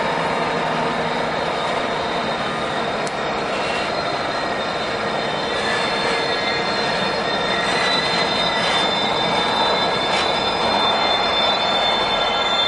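Diesel locomotives with EMD 16-645F3B prime movers, Utah Railway MK50-3 and SD50 units, passing one after another with their engines running. A steady heavy engine drone, with a thin high whine held over it.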